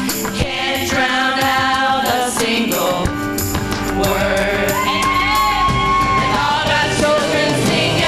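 Women's vocal group singing a gospel song in harmony, with instrumental backing; about halfway through, one high note is held for a second or two.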